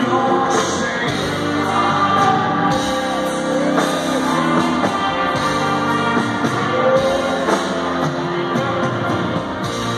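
Live band music in an arena: grand piano and band playing, with a singing voice over them.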